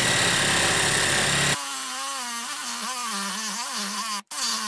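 DeWalt 12V Xtreme brushless cordless hacksaw, a compact reciprocating saw, cutting 1-inch black steel pipe with a metal blade. An even, harsh rasp changes abruptly about a second and a half in to a quieter motor whine that wavers up and down as the saw struggles with the steel, its 2 Ah battery probably almost dead. The sound cuts out briefly twice near the end.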